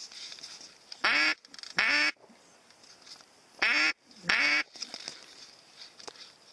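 Duck call blown by a hunter: four loud quacks in two pairs, each falling in pitch.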